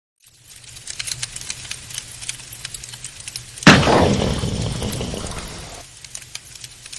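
Coal fire crackling in a stove, with a sudden loud rush of sound about three and a half seconds in that fades away over the next two seconds.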